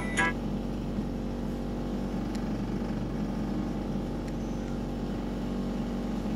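A steady low mechanical hum that neither rises nor falls, with no music or voice over it.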